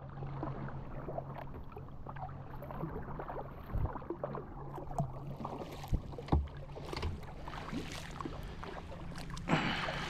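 A kayak being paddled: water splashing and dripping off the paddle, with scattered light knocks, over a steady low hum. There is a longer splash near the end.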